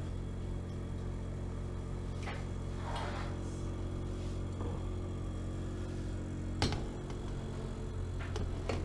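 Steady low hum of a convection oven's fan motor, broken by a few sharp knocks, the loudest about two-thirds of the way through.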